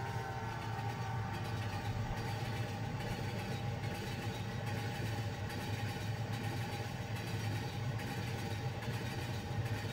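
Steady low engine-like rumble, the running sound of a cartoon train.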